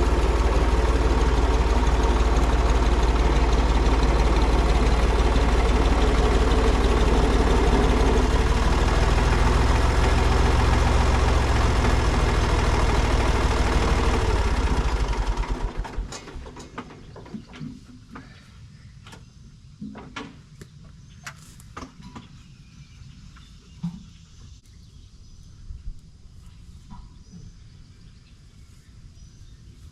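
Heavy farm-machine engine running steadily at idle, then stopping about halfway through, leaving scattered clicks and knocks.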